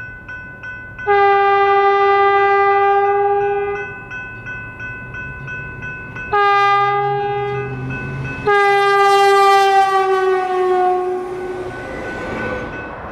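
Stadler FLIRT diesel multiple unit sounding its horn as it approaches and passes: a long blast, a short one, then a long one that drops in pitch as the train goes by. A bell dings about three times a second under the horn, and the rush of the passing train rises near the end.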